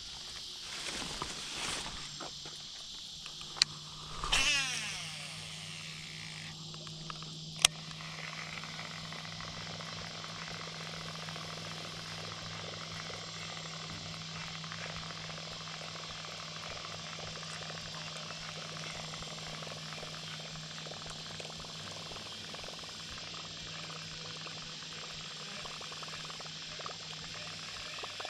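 Steady evening chorus of crickets and other insects, with a low steady hum underneath. A few seconds in there are two sharp clicks and a brief falling whir.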